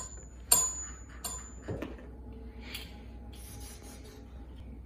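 A few bright chime-like dings in the first second and a half, each with a high ringing tone, like an added sparkle sound effect. They are followed by soft rubbing and scratching noises around the middle.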